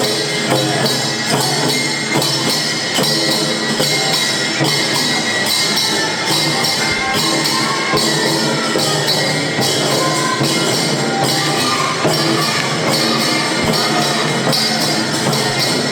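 Kokura Gion taiko: drums beaten in a steady festival rhythm, with jangara hand cymbals clashing about twice a second on top.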